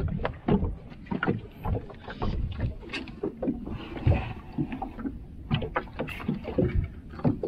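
Small boat rocking on choppy sea, with water slapping against the hull, wind on the microphone and many irregular knocks and taps.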